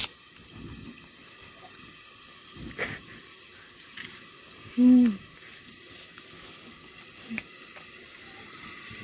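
A short hoot blown into cupped hands, its pitch dropping slightly, about five seconds in. A faint steady hiss runs underneath, with a couple of small knocks.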